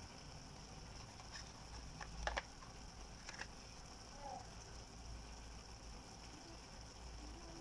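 Quiet kitchen background: a steady faint high hiss and low hum, with a few light clicks about one to three and a half seconds in.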